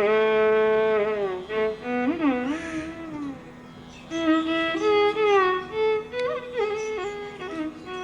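Background music: a slow melody on a bowed string instrument, its notes held and sliding up and down in pitch, with brief pauses between phrases.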